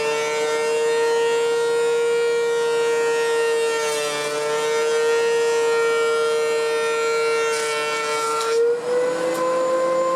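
DeWalt DW735X benchtop thickness planer running with a loud, steady high whine from its cutterhead, planing a board. Near the end the cutting hiss stops and the whine steps up slightly in pitch as the load comes off and the machine runs free.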